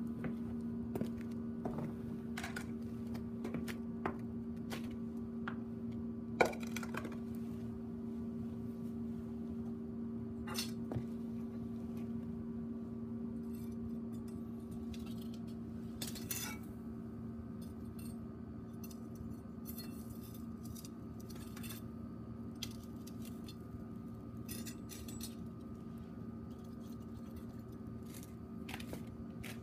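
Metal tongs clinking against a wire grill and a frying pan as chicken is moved onto a charcoal shichirin. Scattered small clicks, with a sharp one about six seconds in, sound over a steady low hum.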